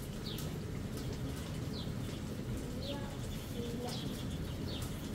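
A bird repeating a short, high, falling chirp about once a second, over a steady low background noise.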